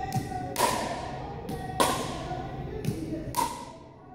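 Pickleball paddle striking a hard plastic ball in a rally, three sharp knocks a little over a second apart, each ringing on in the echo of a large gym. Between hits come softer thuds of the ball bouncing on the hardwood floor.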